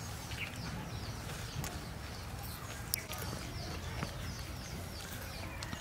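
Birds chirping in short, repeated high calls over a low steady rumble, with a few light clicks and one sharp click about three seconds in.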